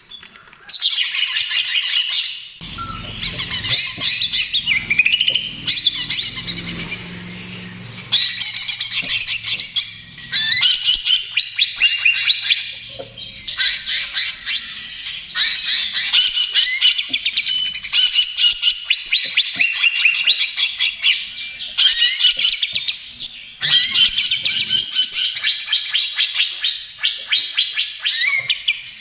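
A greater green leafbird (cucak ijo) singing loudly in a fast, rattling "trotol" style: long runs of rapid chattering notes and quick phrases, broken by brief pauses.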